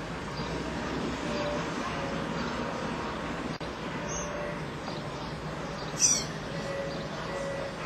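Harbour ambience: a steady murmur of wind and distant activity, with a single sharp, high bird call sweeping downward about six seconds in and fainter chirps around it.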